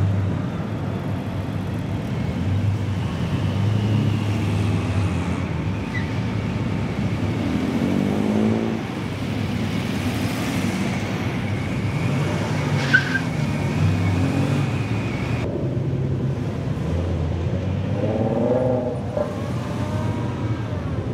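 Car engines running as a line of cars drives past at low speed, one after another, with an engine audibly accelerating about eight seconds in and again near the end.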